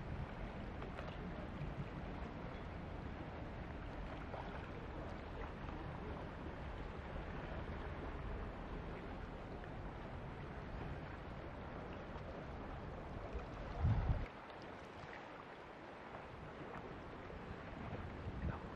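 Outdoor wind and sea ambience: a steady rush with a low rumble of wind on the microphone. A louder gust or bump about fourteen seconds in, after which the ambience is quieter.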